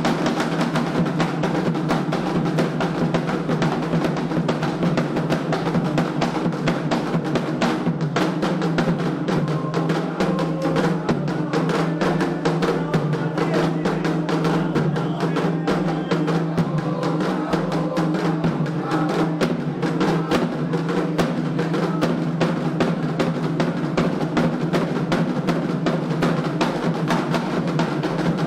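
Candomblé ritual drumming on atabaque hand drums, played in a fast, unbroken rhythm of dense, rapid strokes.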